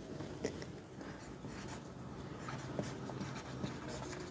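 Dry-erase marker writing on a whiteboard: faint, short scratchy strokes and small taps as letters are written, over a low room hum.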